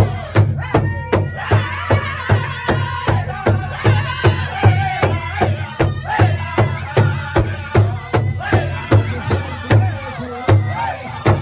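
Powwow drum group singing in full voice while beating a large shared powwow drum in unison, a steady beat of about three strikes a second under the wavering song.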